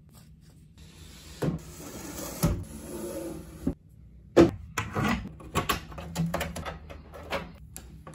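Sped-up clicks and knocks of white drawer-unit panels and hardware being handled and fitted together. A hissy stretch with a couple of knocks comes first, then about halfway through a quick run of sharp clicks and knocks.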